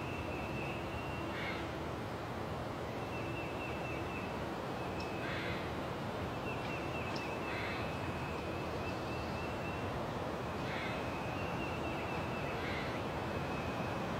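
Spring forest ambience: crows cawing about five times, a few seconds apart, over a steady background hiss, with a long high trill that comes and goes between the caws.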